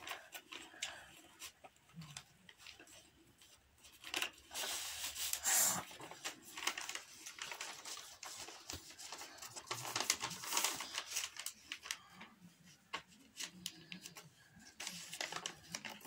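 A sheet of paper rustling and crinkling as it is folded and creased by hand for origami, in uneven spells that are loudest about four to six seconds in and again around ten seconds in.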